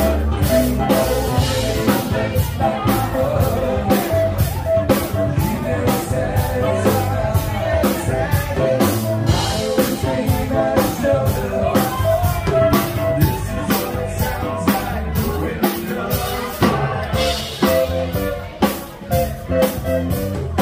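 Rock music with a steady drum beat, guitar and a singing voice.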